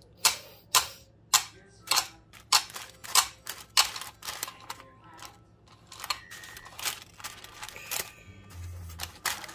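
A glass jar of lemon curd being emptied: a run of sharp taps at a steady pace, a little under two a second, then irregular scraping and rustling as the curd is spread with a spatula.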